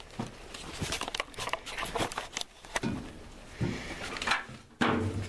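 Scattered clicks, knocks and rustles as someone climbs onto a compact tractor and handles its seat and controls. A louder, lower sound starts just before the end.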